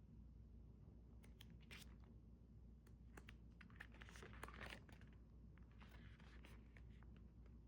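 Faint rustling and light ticks of glossy paper being handled as photobook pages are turned, heaviest about four to five seconds in.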